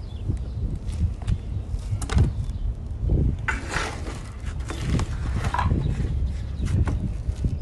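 Hand plastering with wet concrete mortar close to the microphone: a steel trowel taps and scrapes against the mortar and the bucket, and a straightedge is scraped along the wet edge. There is a louder rasping stretch about halfway through, over a low steady rumble.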